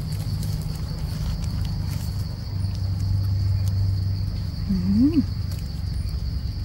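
Insects in the forest giving one steady, unbroken high-pitched drone. A brief low sound rises and falls about five seconds in.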